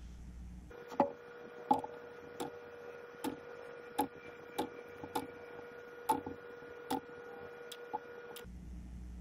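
Vacuum pump oil glugging out of its bottle as it is poured into the pump's reservoir. About ten glugs come roughly every 0.7 seconds over a steady hum.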